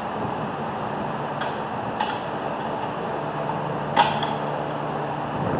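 Scattered light metallic clicks and clinks of hand tools on brake parts, with a louder double click about four seconds in, over a steady low hum.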